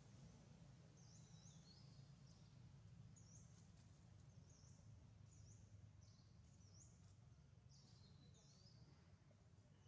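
Near silence: faint outdoor ambience with a steady low hum and a bird's short, high chirps repeated every second or so.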